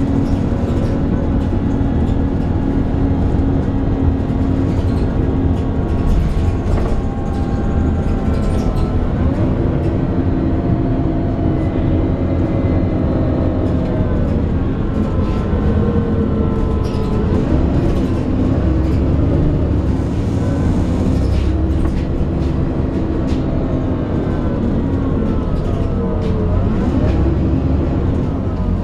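Alexander Dennis Enviro 400 double-decker bus on the ADL Trident 2 chassis under way, heard from on board: a steady drivetrain rumble with a groaning tone that rises and falls in pitch several times as the bus gathers and loses speed.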